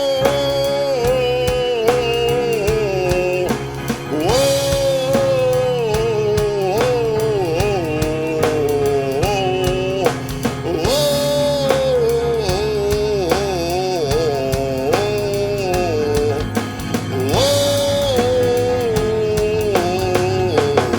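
Song intro: a bending, gliding lead melody in phrases of a few seconds over a steady drum beat and bass.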